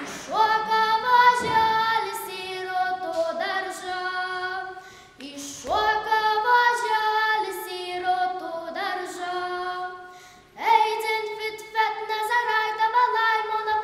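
A girl singing a Lithuanian folk song solo and unaccompanied, in three long phrases with a short breath about five seconds in and again about ten seconds in.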